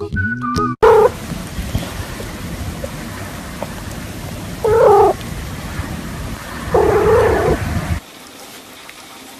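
A cat meowing three times, a short call and then two longer ones, over a steady hiss of background noise that drops away near the end.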